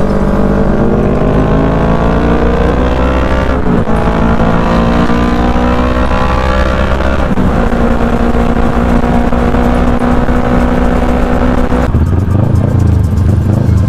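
Motorcycle engine pulling up through the gears: its pitch rises, drops at a shift about four seconds in, rises again to a second shift, then holds steady at cruising speed. Near the end it gives way to a lower rumble.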